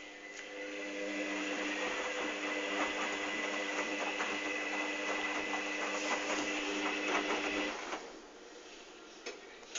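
Hoover Dynamic DYN 8144 D washing machine turning its drum during the cotton 60 °C pre-wash: the motor's steady whine rises over the first second, holds for about seven seconds over a patter of small ticks, then stops.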